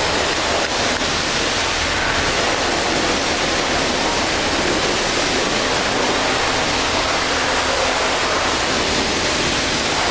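Pressure washer spraying water onto an excavator: a steady, loud rush of water spray.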